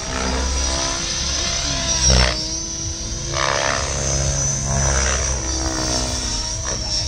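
Mikado Logo 700 electric radio-controlled helicopter in flight: a high motor and gear whine over the rotor noise, rising and falling in pitch as it manoeuvres. There is a brief loud swell about two seconds in.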